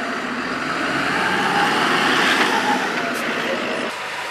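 Off-road truck engine running, a steady dense noise that swells a little midway and changes abruptly just before the end.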